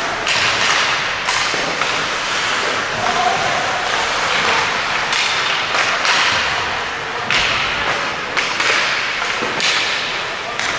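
Ice hockey play on a rink: a steady noisy wash of skates and play, with a string of sharp knocks about once a second from sticks, puck and boards.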